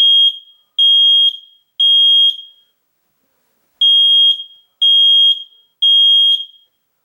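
Battery-operated smoke alarm sounding during its push-to-test check: loud, high-pitched beeps of about half a second each, in two groups of three with a pause between groups, the standard temporal-three alarm pattern.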